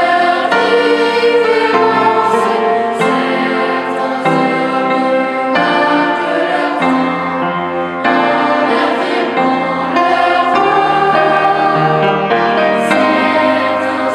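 Children's choir singing a hymn in three-part harmony, in held, sustained phrases.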